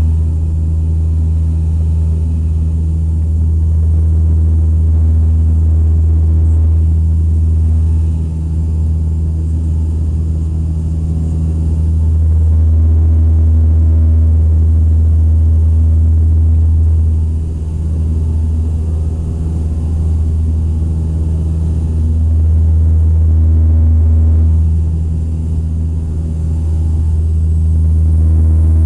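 Aircraft engines droning steadily: a loud low hum with several steady pitched tones above it, swelling and dipping slowly every several seconds.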